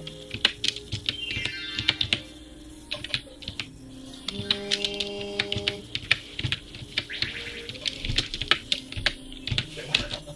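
Slow, uneven typing on a computer keyboard: a string of separate key clicks at irregular intervals, with background music.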